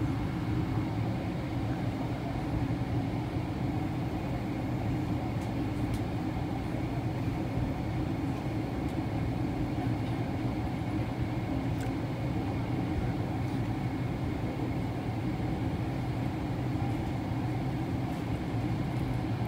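Steady cabin drone inside a Boeing 777-300ER at the front of the cabin, its GE90 engines at idle with the air conditioning running, while the aircraft waits for takeoff. A few faint ticks sound over it.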